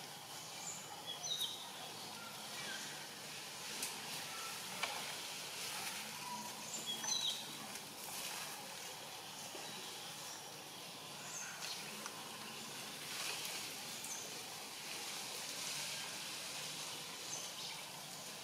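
Forest ambience: a steady outdoor background hiss with scattered short, high bird chirps, the loudest about a second in and again about seven seconds in.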